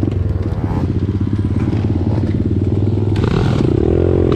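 Motorcycle engine running, with a brief rev that rises and falls again near the end.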